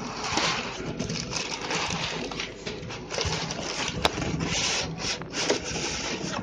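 Plastic wrapping and cardboard rustling and crinkling in irregular handling as a water-filled fish bag is worked loose and lifted out of its shipping box.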